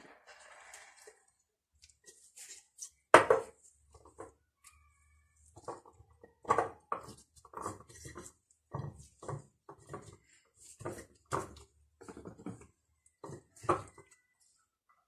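Small pickling cucumbers dropped and pressed one by one into a glass jar, giving a string of irregular knocks and clunks against the glass, the loudest about three seconds in.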